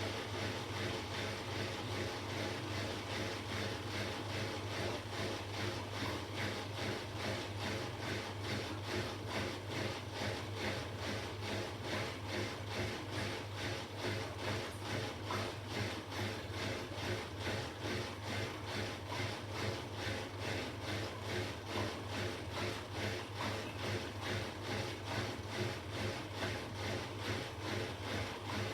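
Beko household appliance running with a rhythmic chugging, evenly spaced pulses over a steady low hum.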